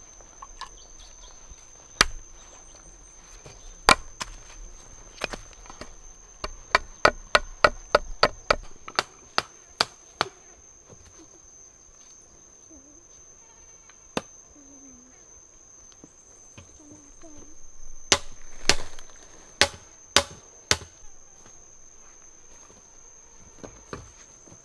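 Sharp chopping strikes on green bamboo. A few single blows come first, then a quick run of about three a second, then a lone blow, and a short cluster near the end. A steady, high-pitched insect drone runs underneath.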